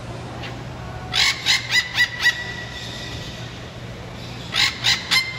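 Parrots squawking: a quick run of five harsh calls about a second in, then three more near the end.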